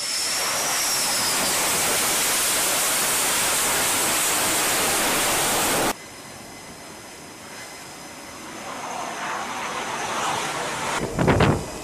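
F/A-18 jet engines roaring on approach to the carrier deck, with a high turbine whine at first; the roar cuts off abruptly about six seconds in. Quieter steady noise follows and slowly builds, then a brief loud low rumble comes near the end.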